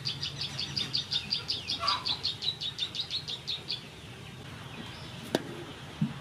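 A bird calling a fast, even run of high chirps, about six a second, that stops a little before four seconds in. A single sharp click follows about five seconds in.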